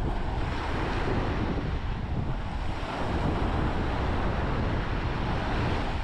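Surf washing onto a sandy beach, with wind buffeting the microphone.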